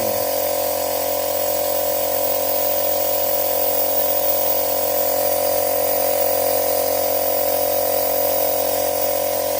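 A small machine running steadily, giving a constant even whine.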